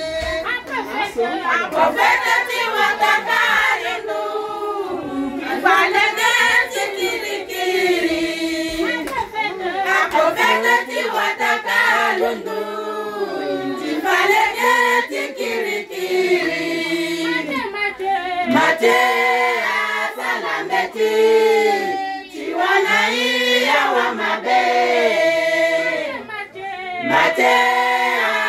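A group of women singing together, unaccompanied, in a continuous sung melody.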